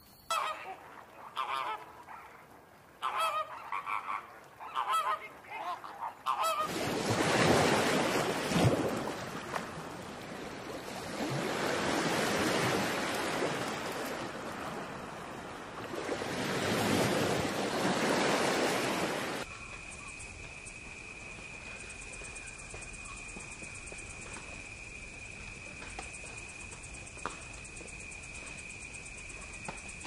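A bird's harsh calls, repeated in short runs, then breaking surf in three surges that swell and fade. About twenty seconds in, the surf cuts off and a steady high-pitched insect trill, like crickets, takes over.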